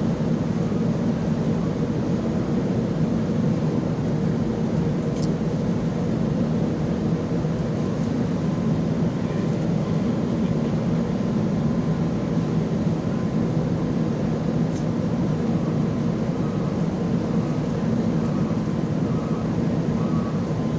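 A ferry's engines running steadily while under way: a constant low hum with a rushing noise over it.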